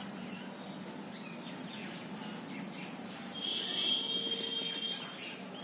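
Faint pencil strokes on paper as lines are drawn, and then, a little past the middle, a steady high whistling tone for nearly two seconds.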